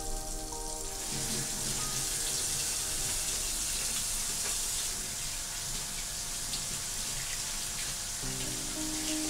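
Butter sizzling as it melts in a hot nonstick frying pan, a steady hiss that sets in about a second in.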